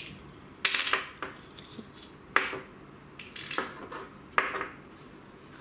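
Small metal parts of a disassembled car cigarette lighter socket (chrome sleeve, coil spring, washer) clinking as they are handled and set down on a wooden workbench: a brief clatter about half a second in, then three sharp clinks over the next two seconds.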